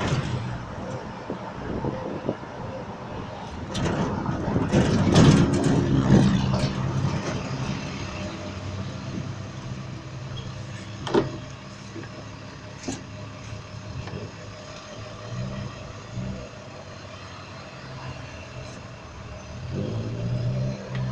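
Pickup truck engine running with street traffic around it, heard from the open truck bed while riding. A louder rushing stretch about four to six seconds in, and one sharp knock about halfway through.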